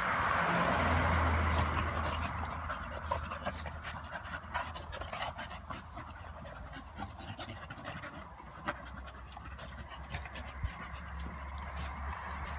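A bull terrier and a Staffordshire bull terrier play-fighting, panting hard, with the breathing loudest in the first couple of seconds. Many short scattered clicks and knocks follow as they tussle.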